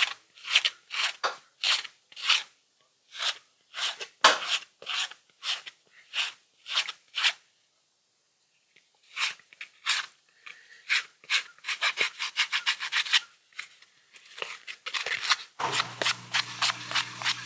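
Sandpaper rubbed by hand over the edge of a freshly cut gas cap gasket, in short scraping strokes of about two a second, with a brief pause midway and quicker strokes after it. A steady low hum starts near the end.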